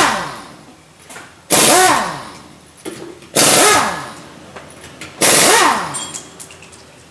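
Four short bursts from a power tool, about two seconds apart, each with a whining pitch that swings up and then falls away as it dies down.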